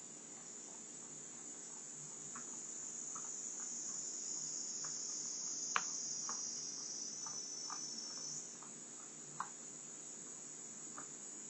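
Steady high-pitched chirring of insects, louder through the middle, with scattered faint ticks and one sharp click about six seconds in.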